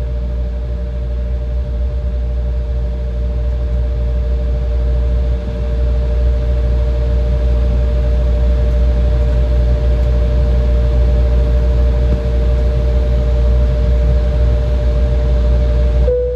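Jet airliner cabin noise while taxiing: a steady low rumble and hiss with a constant two-note engine whine, growing a little louder about five seconds in.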